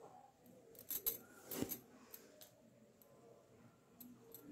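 Embroidery needle and thread worked through dusuti cross-stitch cloth stretched taut in a plastic hoop: a few faint clicks of the needle piercing the cloth about a second in, and a short rasp of thread being drawn through just after.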